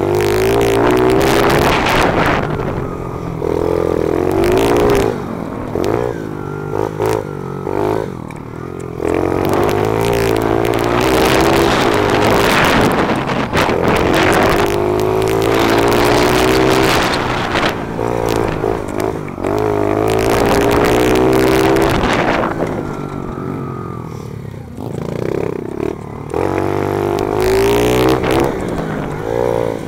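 Small four-stroke pit bike engine with an FMF exhaust, heard up close from the rider's helmet, revving up and dropping back in pitch over and over as it accelerates out of and slows into the corners of a dirt track. Wind rushes over the microphone in gusts.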